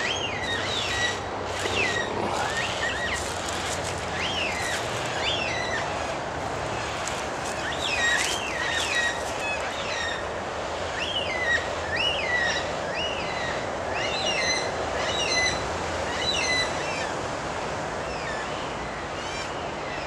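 White-tailed black cockatoos calling over and over, a string of rising-and-falling calls, sometimes two a second, from a feeding flock. Steady traffic noise runs underneath.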